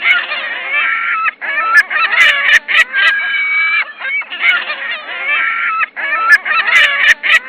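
Loud, repeated bird calls in runs of about a second each, with short breaks between.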